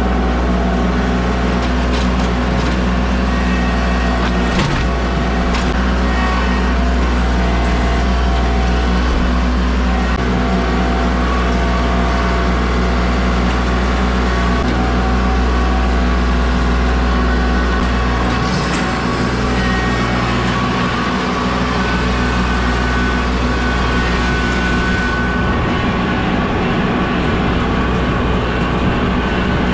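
A heavy vehicle engine running steadily under a constant load, with a few short knocks in the first several seconds.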